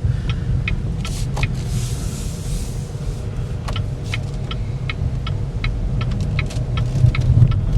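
Cabin sound of a 2014 Cadillac ELR on the move: a steady low road rumble, with scattered light clicks and ticks throughout.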